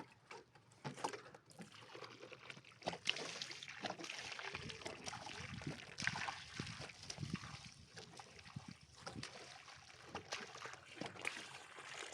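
Irregular wet sloshing and scraping with many small knocks.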